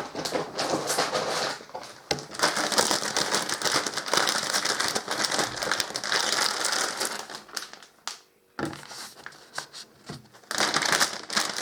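Plastic anti-static bag crinkling and rustling as a motherboard is unpacked from its box and bag. The rustling breaks off briefly about eight seconds in, then resumes more quietly and grows louder again near the end.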